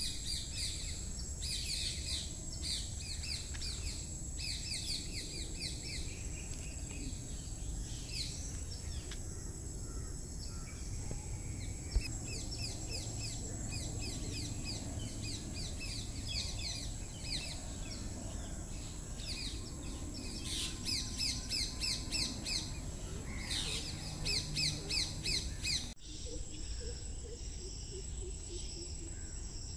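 Songbirds chirping in quick repeated trills, busiest in the last third, over a steady high insect drone such as crickets or cicadas. The chirping stops abruptly shortly before the end, leaving the insect drone.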